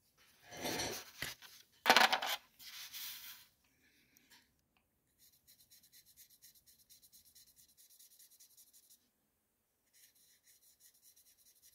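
A clatter on the steel bench about two seconds in. From about five seconds on, a Sharpie felt-tip marker is scrubbed over an opal cabochon on its dop stick in rapid, faint, scratchy strokes, pausing briefly near the end. The marker is blackening the stone so that nicks and scratches will show while it is polished.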